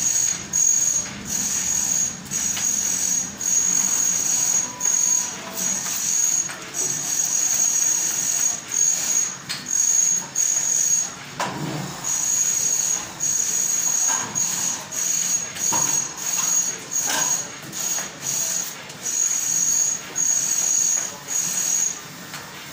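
Plasterer's trowel and straightedge scraping across freshly applied gypsum plaster in repeated hissing strokes, about one a second, with a knock about halfway through.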